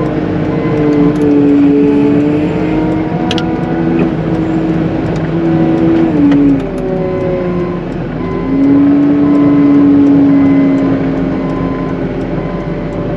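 Cat 906M compact wheel loader's engine running under load, its whine rising and falling in pitch as the machine works, with a sharp click a little over three seconds in.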